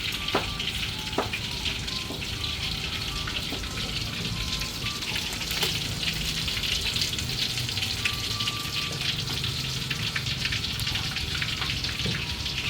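Food frying in hot oil: a steady sizzle with scattered sharp crackles.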